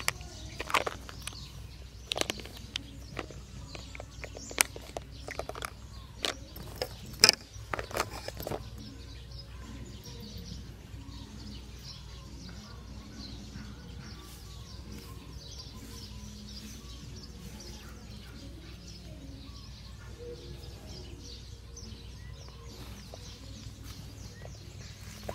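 A string of sharp clicks and knocks, like the phone or gear being handled, for the first eight seconds or so. After that comes steady outdoor background noise with faint bird chirps.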